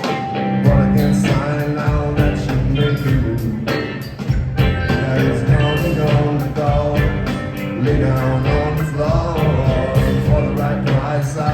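Live rock band playing an instrumental passage: a steady drum beat over bass and melodic lines.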